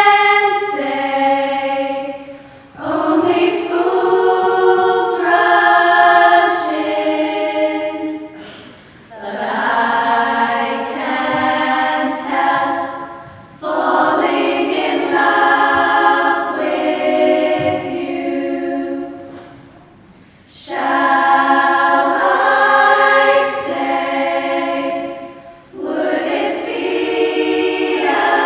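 A schoolgirls' choir singing, in phrases broken by short pauses for breath roughly every five seconds.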